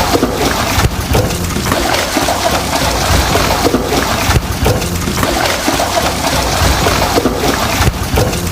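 Washing machine running a wash, water sloshing and splashing in the turning drum, with brief lulls every second or few.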